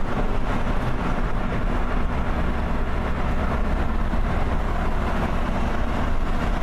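Steady road noise of a moving car at about 30 mph: a low engine and tyre rumble with a hiss of wind and road over it.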